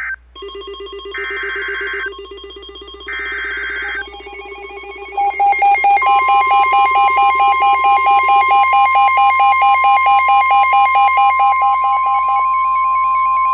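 NOAA Weather Radio alert signalling: the last two of three SAME digital header bursts, each about a second long, then the steady 1050 Hz warning alarm tone starting about six seconds in, which marks a new warning about to be read. A rapidly pulsing electronic alert beep plays over it, loudest from about five seconds in.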